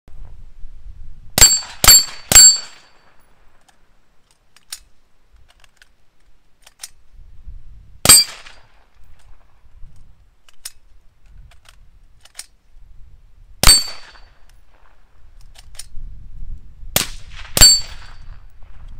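Gunshots from an integrally suppressed 5.56 AR-15, a Gemtech Integra upper. There is a quick string of three shots, then single shots several seconds apart, and a closing pair about half a second apart.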